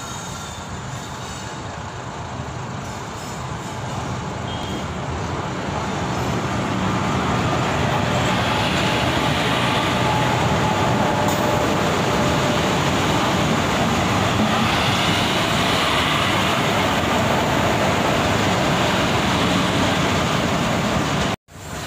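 Goods train hauled by an Indian Railways electric locomotive running past close by, followed by covered goods wagons: a steady rumble of wheels on rail that grows louder over the first several seconds as the locomotive draws level, then holds. It breaks off abruptly near the end.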